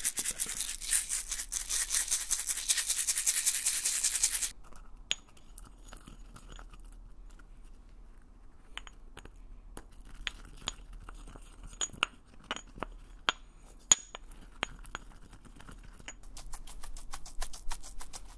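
A small glass jar with a metal lid shaken hard and fast, its contents rattling, cutting off suddenly about four and a half seconds in. Then scattered light clicks and taps from fingers fiddling with a small object, and near the end rapid crinkling as a plastic-wrapped packet is handled.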